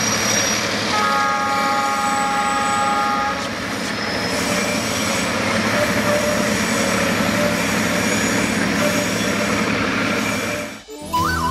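Loaded freight train hopper wagons rolling past on curved track: a steady rumble and rattle of steel wheels on the rails. About a second in, a high steady tone of several notes sounds for about two seconds. Near the end the train sound cuts off and flute music begins.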